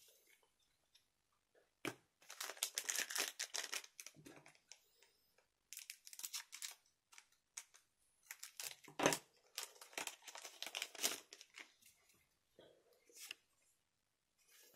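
Weiß Schwarz trading cards and foil booster-pack wrappers being handled: quiet bursts of crinkling and rustling, with two longer stretches, about two seconds in and about nine seconds in.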